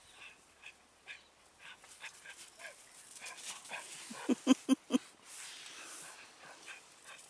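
Chow chow puppy giving four quick, loud barks about four seconds in, with light crunching of snow underfoot around them.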